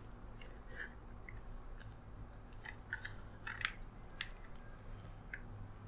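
Wooden chopsticks tossing a yee sang salad of shredded vegetables and raw fish in a bowl: soft rustling and squishing of the strands with scattered light clicks of the chopsticks, over a faint steady low hum.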